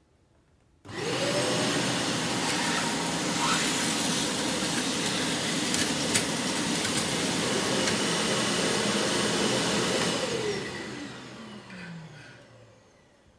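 Kärcher vacuum cleaner with a fireplace ash-cleaner attachment, switched on about a second in and running steadily with a few clicks of material drawn through. It is switched off near the end and winds down with a falling pitch.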